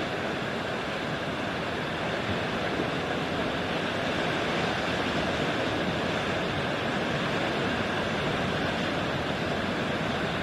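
Ocean surf: a steady, continuous wash of waves breaking on a beach, with no single crash standing out.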